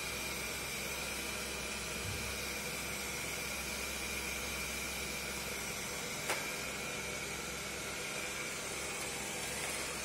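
Xiaomi Mi robot vacuum cleaner running, a steady hissing whir of its suction fan with a high whine over it. A single sharp click about six seconds in.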